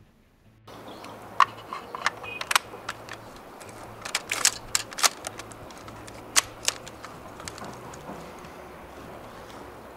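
A string of sharp mechanical clicks and clacks from a Snow Wolf SV-98 spring airsoft sniper rifle being worked and fired: a few single clicks, then a tight cluster about four seconds in and two more a little later, over steady outdoor background noise.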